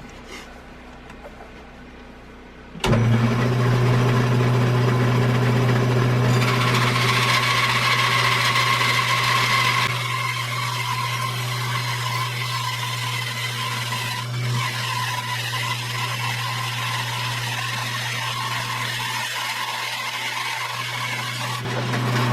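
Shop bandsaw switched on about three seconds in and running with a steady low motor hum, its 1/2-inch, 3-teeth-per-inch blade sawing a slab off a split half log held on a log sled. The sawing is loudest for the first several seconds, then settles to a steadier, somewhat quieter level.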